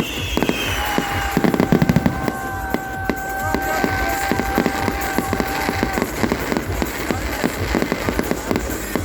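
New Year fireworks going off: a dense, continuous run of bangs and crackles. A steady whistling tone starts about a second in and stops about six seconds in.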